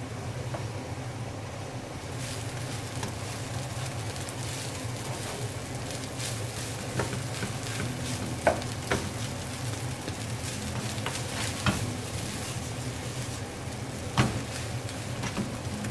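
Fried rice sizzling in a nonstick pan as a spatula stirs and turns it. The spatula scrapes through the rice and gives a few sharp taps against the pan, the loudest about halfway through and again near the end.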